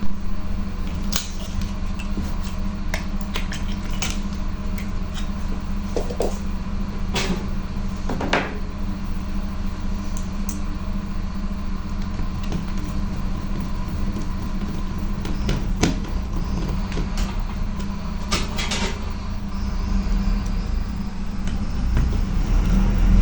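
Scattered clicks and light clatter of small parts and tools being handled during reassembly of a microwave oven, over a steady low hum.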